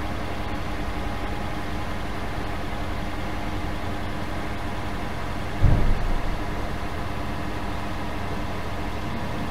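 Toyota Prius NHW20's 1.5-litre four-cylinder petrol engine idling, its exhaust heard at the rear muffler pipe where a burnt-through hole has been patched with heat-resistant paste and ceramic bandage. There is one short, louder low surge a little past halfway.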